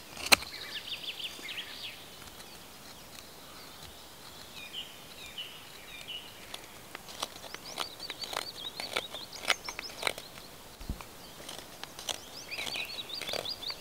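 Knife blade scraping shavings off a piece of fatwood onto bark: irregular short scraping strokes. Birds sing high chirping trills in bursts behind it.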